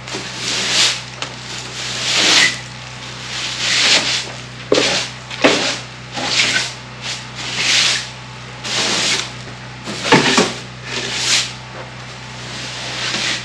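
Straw broom sweeping debris across old wooden floorboards and a sill beam: a series of short, scratchy swishes, about one a second, a few of them with a dull knock of the broom against the wood.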